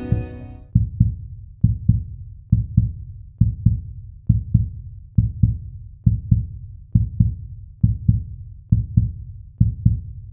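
Heartbeat sound effect: low double thumps, lub-dub, repeating a little faster than once a second.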